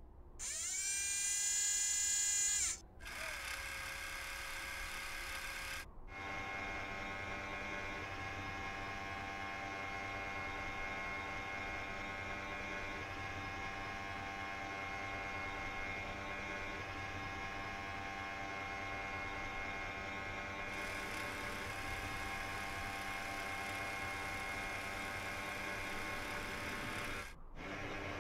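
Whirring of small electric motors, like a robot's servos: a whine that rises in pitch and levels off in the first few seconds, a brief steady tone, then a long steady hum of several tones that stops near the end.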